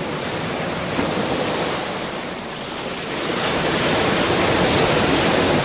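Ocean surf: an even wash of breaking waves that eases off about two seconds in, then swells louder again as the next wave comes in.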